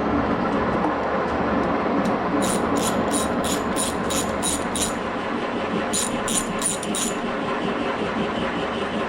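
A steady machine running noise with a low hum. Over it, a ratchet wrench clicks in two runs of about three clicks a second as the transmission's top-cover bolts are backed out.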